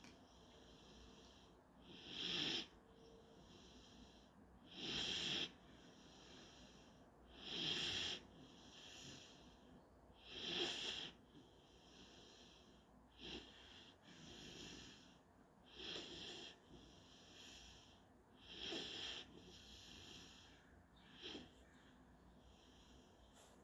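German shorthaired pointer puppy snoring in its sleep: a louder breath about every two and a half to three seconds, with fainter breaths in between.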